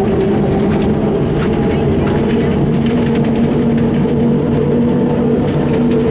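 Ikarus 260.50 city bus's diesel engine running as the bus drives, heard from inside the cabin: a steady drone whose pitch rises a little about two to three seconds in, with light rattling.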